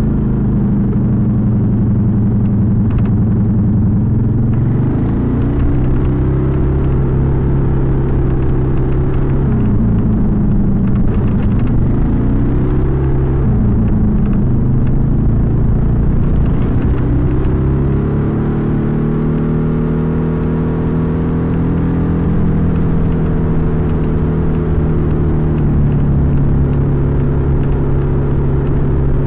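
Suzuki Skydrive 125 scooter's single-cylinder four-stroke engine, running on a PE carburettor during a ride, heard from a recorder placed by its air filter box. The engine pitch rises and falls several times as the throttle is opened and closed, then holds fairly steady near the end.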